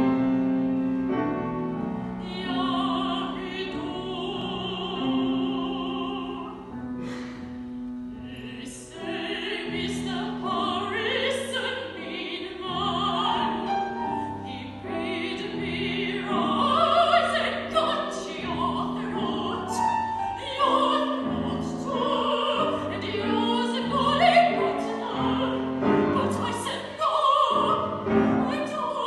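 A woman singing an opera aria with a wide vibrato, accompanied by piano.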